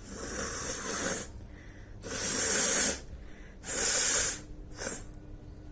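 A person breathing forcefully through the nose: four hissing breaths, three about a second long and a short one near the end, as a sutra neti thread in the nostril brings on sneezing.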